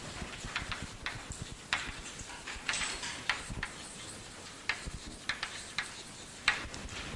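Chalk tapping and stroking on a blackboard as equations are written: irregular short clicks and brief scrapes.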